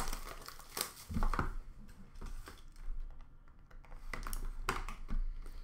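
Scattered small clicks and taps of hands handling a hockey-card box and its cards, opening the packaging, with a quieter stretch in the middle.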